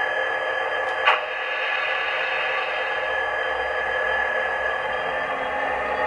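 Hornby TTS Class 66 sound decoder in an OO gauge Class 66 model locomotive playing its diesel engine sound through a small 8-ohm bass reflex speaker, a steady running note as the model moves along the track. A single sharp click about a second in.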